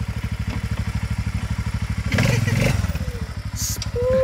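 ATV engine running at idle with a steady, even throb, then revving up briefly about two seconds in as the quad pulls away.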